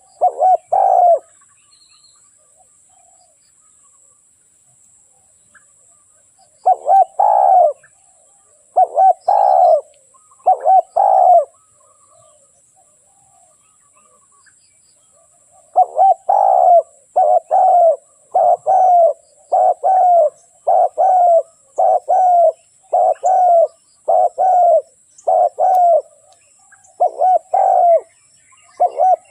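Spotted dove (tekukur) cooing: a call at the start, three more after a pause, then after another pause a steady run of coos about one a second.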